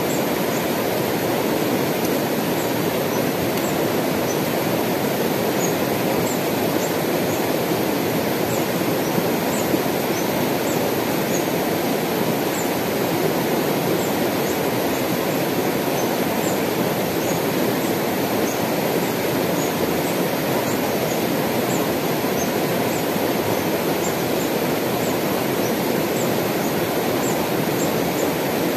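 Shallow mountain river rushing and tumbling over rocks, a steady, unbroken rush of water. Faint short high chirps recur every second or so above it.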